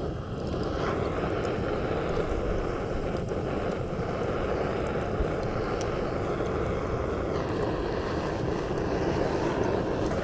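Hand-held gas torch burning steadily, its flame played onto lumps of charcoal to light them.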